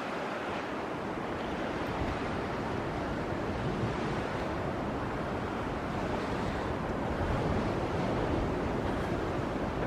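Strong wind blowing, a steady rushing noise that swells slightly near the end.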